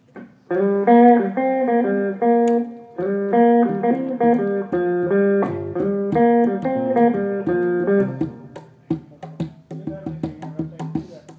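Live band rehearsal music: a melodic line of quick plucked-string notes, with low drum hits joining about five seconds in. The playing thins out near the end.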